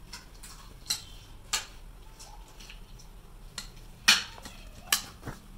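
Metal spoon stirring a chaat mix of boiled vegetables and sprouts in a plastic bowl: a handful of separate clicks and scrapes as the spoon knocks the bowl, the sharpest about four seconds in.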